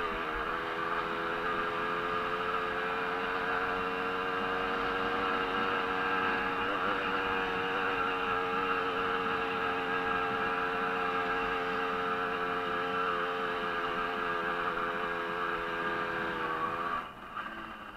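Small 50 cc two-stroke Jawa-based racing moped engine running flat out at steady high revs. About 17 seconds in, the throttle shuts and the engine drops off sharply.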